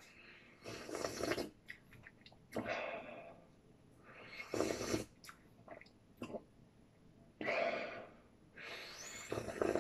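A person slurping miso soup from a bowl: five short, airy slurps a second or two apart.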